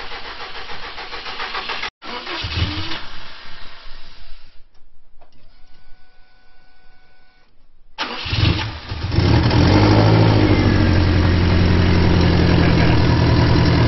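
Subaru EJ207 flat-four in a 2004 STI, freshly rebuilt, cranking about eight seconds in and catching almost at once. It settles into a loud, steady fast idle on its first start. Before that comes unclear noise broken by abrupt cuts, then a quieter stretch with a faint steady tone.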